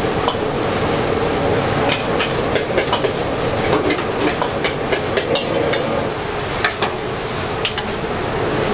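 Pad thai noodles stir-frying in a large steel wok: a steady sizzle, with the long metal ladle scraping and clanking against the pan many times at irregular intervals.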